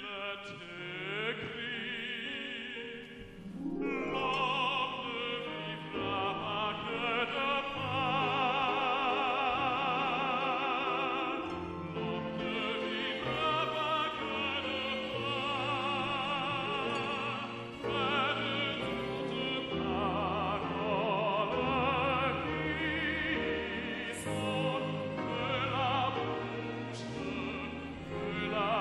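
Solo male voice singing in an operatic style with strong vibrato, accompanied by an orchestra with violins.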